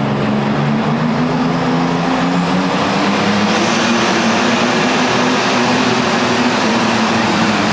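Light limited super stock pulling tractor's engine running at full power under load as it drags the pulling sled, a loud, steady drone with a broad hiss that grows stronger about three seconds in.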